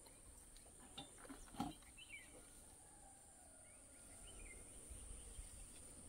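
Faint field ambience: a steady high-pitched insect drone with a couple of faint bird chirps, and a few soft knocks, the loudest about a second and a half in.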